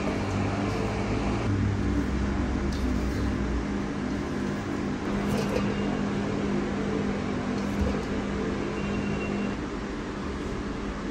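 Steady machine hum with a low drone and a few faint ticks.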